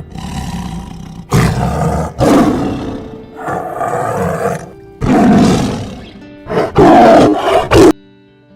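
A large wild animal roaring loudly, a series of deep roars one after another, over background music; the roars stop shortly before the end.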